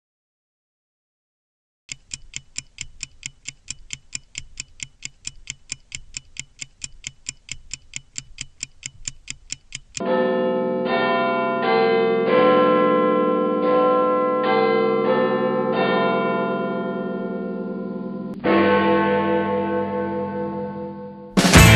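After a short silence, a stopwatch ticks steadily at about four ticks a second. About ten seconds in, it gives way to ringing bell-like chimes of several pitches that fade and are struck again, and guitar music starts right at the end.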